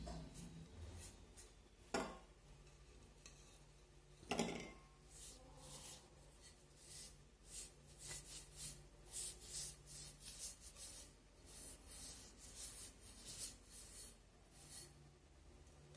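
A cloth rubbing over a porous ceramic vase in quick, repeated faint strokes, working in bitumen of Judea thinned with mineral spirits. Two sharp knocks come about two and four seconds in.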